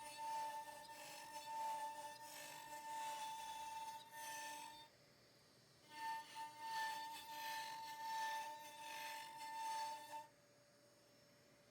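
CNC router spindle whining steadily while its bit cuts a walnut board on a 3D roughing pass, with a rasping cutting noise over the whine. The sound drops out abruptly for about a second around five seconds in, and again shortly before the end.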